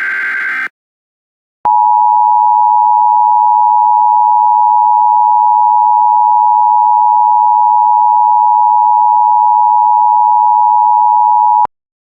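The tail of an Emergency Alert System SAME digital header burst, a harsh buzzy data squeal. After a second of silence comes the EAS attention signal, a steady dual tone of 853 and 960 Hz held for about ten seconds and cut off sharply.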